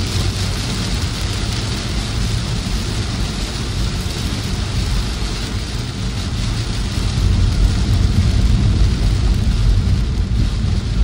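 Heavy rain drumming on a car's roof and windscreen, heard from inside the cabin over the low rumble of the car driving on a wet road. The rumble grows louder about seven seconds in.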